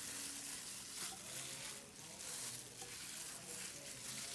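Raw sliced liver being squished and turned by gloved hand in a bowl of soy sauce and calamansi marinade: a wet, uneven squelching and splashing.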